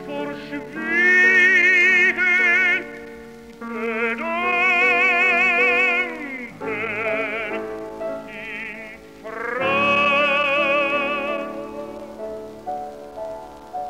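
Operatic tenor singing a German art song (a Lied) with a wide vibrato, accompanied by piano, in several held phrases. Near the end the voice drops out and the piano carries on more softly.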